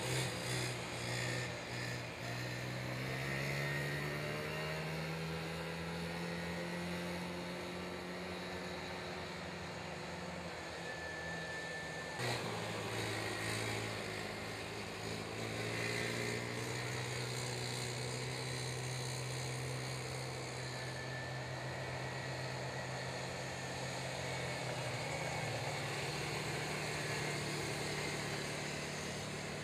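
Youth racing ATV engines running at speed, their pitch repeatedly climbing and dropping as the riders accelerate and back off. A single sharp click about twelve seconds in.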